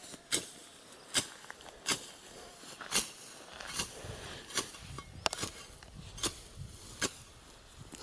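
Scythe blade swishing through tall grass in a steady mowing rhythm, one short sharp stroke a little less than every second.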